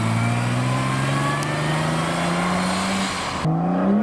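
AC 3000ME Turbo's mid-mounted turbocharged V6 accelerating away in gear, its engine note rising slowly and steadily. About three and a half seconds in, the sound cuts to a BMW M2's turbocharged straight-six starting to accelerate, its note climbing quickly.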